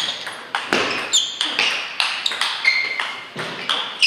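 Table tennis rally: a quick series of sharp clicks as the celluloid-type ball is struck by the rackets and bounces on the table. Short high squeaks, likely shoes on the sports floor, come in between.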